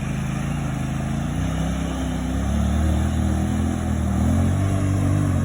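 Off-road powersports vehicle engine running under load, with its pitch and loudness rising about a second and a half in as it is given more throttle.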